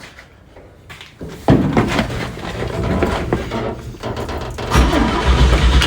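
Chevrolet C10 pickup engine being cranked by its starter after a carburetor replacement. The cranking starts suddenly about a second and a half in and gets heavier near the end. The engine does not catch, a sign that fuel is not yet reaching the new carburetor.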